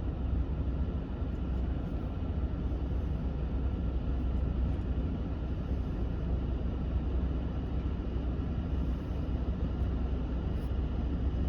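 Pickup truck's cabin HVAC blower running steadily on fan speed 5, air rushing out of the dash vents, over a steady low hum.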